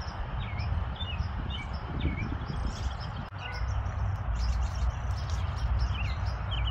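Small birds chirping in short, quick calls, about two a second, that pause midway and resume near the end, over a steady rushing background noise with a low rumble.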